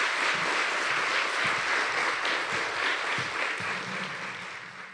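Audience applauding steadily after a talk, tapering slightly near the end.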